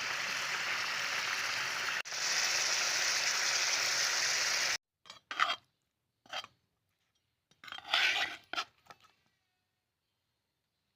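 Chicken frying in a pan, a steady sizzle that gets louder about two seconds in and cuts off suddenly after about five seconds. A few short scrapes and clatters of kitchen utensils follow.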